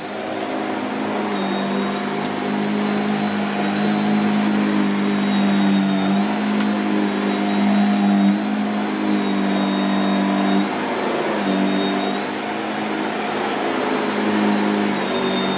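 Shark Powered Lift Away NV681UKT bagless upright vacuum cleaner running on carpet: a steady motor hum with a thin high whine over the rush of air. Its tone shifts a little as the powered floor head is pushed and pulled over the carpet.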